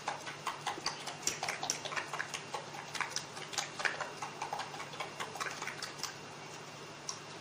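A metal spoon clicking against a glass bowl in quick repeated strokes, several a second, as cream and powdered sugar are beaten together. The clicking stops about six seconds in.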